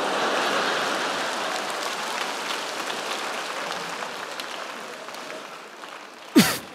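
Audience applauding, swelling at the start and slowly dying away. Near the end a sudden loud burst with a quickly falling tone cuts in.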